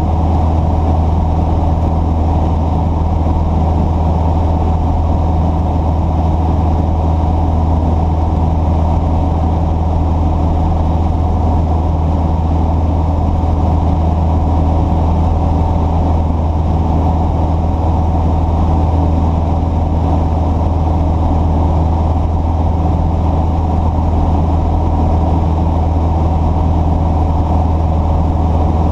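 Engine running steadily at idle, a constant low hum with no change in pitch or level.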